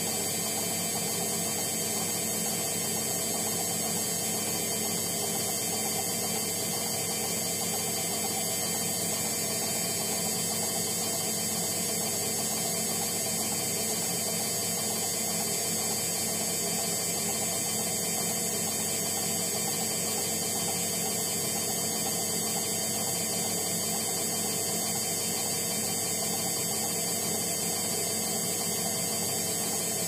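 Hotpoint Ariston washing machine running with a steady hum, unchanging throughout.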